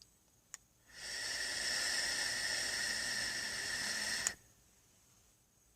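A hit being drawn on an OBS Engine rebuildable dripping atomizer with a single coil fired at 25 watts. It gives about three and a half seconds of steady hiss from the airflow and the sizzling coil, with steady high tones in it, and it stops abruptly on a click. A single short click comes about half a second in.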